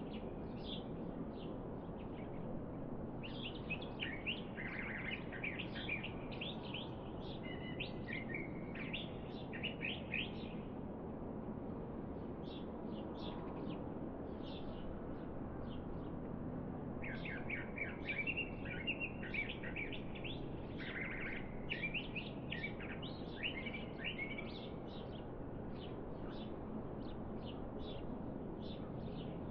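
Small birds chirping in quick, high twitters, in two busy flurries separated by scattered single chirps, over a steady low outdoor background hum.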